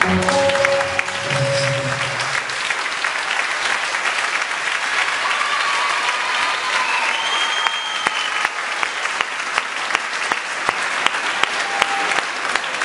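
Audience applauding as the dance music ends. A last held note of the music fades within the first two seconds, then steady clapping continues, with loud single claps standing out more toward the end.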